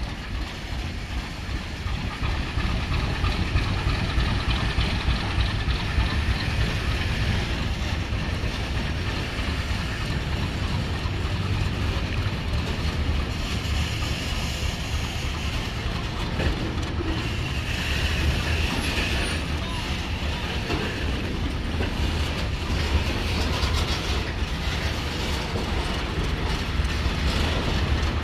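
Freight train rolling past: a steady rumble of wagon wheels on the rails, with no horn sounding.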